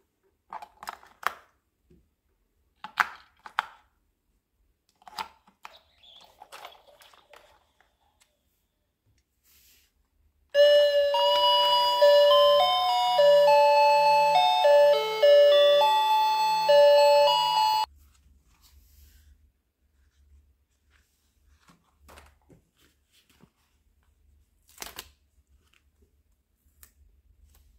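Batteries clicking and knocking into the plastic battery compartment of a toy unicorn ice-cream cart. The toy then plays a simple electronic chime tune of stepping notes for about seven seconds, starting and cutting off suddenly, followed by a few light plastic taps.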